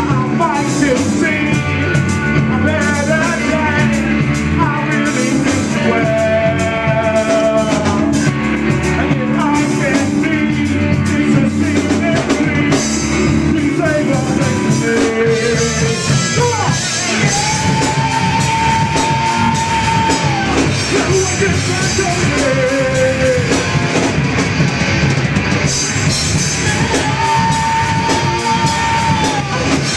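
Live rock band playing: a male singer's voice over electric guitars and a drum kit. The singer holds long notes about halfway through and again near the end.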